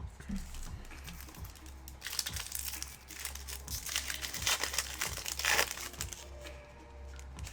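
Crinkling of a trading-card pack's plastic-foil wrapper as it is handled and opened.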